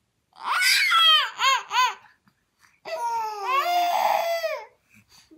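Toddler crying in two loud bouts: a short cry breaking into three quick sobs about half a second in, then a longer wail falling in pitch about three seconds in.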